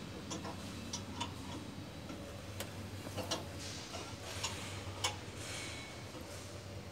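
Irregular sharp metal clicks and taps from work in an opened escalator pit, over a steady low machine hum.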